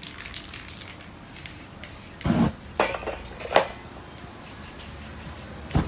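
Aerosol spray-paint can hissing in short, quick spurts, several in the first second, with louder bursts between about two and three and a half seconds in.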